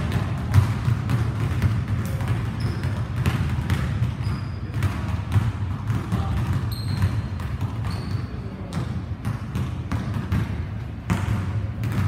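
Basketballs bouncing on a hardwood gym floor: irregular sharp thuds, echoing in the gymnasium, over a steady low hum, with a few brief high squeaks in between.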